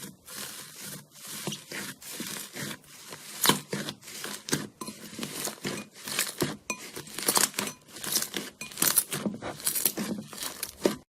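Slime being squeezed and worked by hand, with a dense, irregular crackling and popping.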